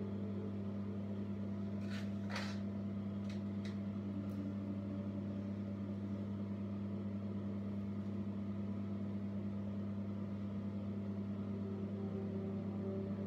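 Steady low hum with a few faint clicks and rustles from hair being handled about two to four seconds in.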